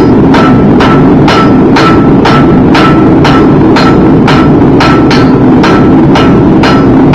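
Blacksmith's hand hammer striking hot iron on an anvil, about two blows a second, each with a short metallic ring. A loud steady noise runs underneath the blows.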